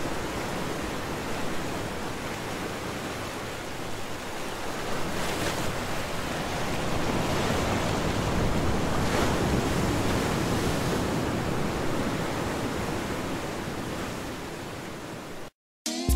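Steady rush of moving water, swelling a little in the middle; it cuts off suddenly near the end.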